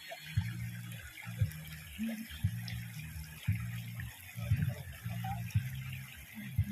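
Shallow river water rushing and splashing around people wading and handling a net, with a louder, uneven low rumble over it.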